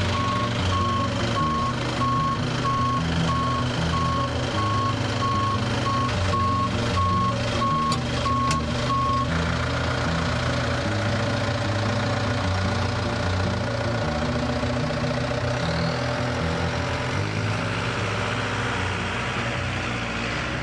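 Aircraft tow tractor's reversing alarm beeping steadily, about one and a half beeps a second, over its running engine. The beeping stops about nine seconds in and the engine runs on as the tug moves off.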